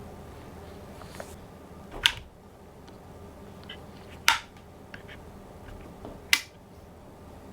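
Three sharp clicks, about two seconds apart, with a few faint ticks between them: handling of a mechanical keyboard and its parts on a desk.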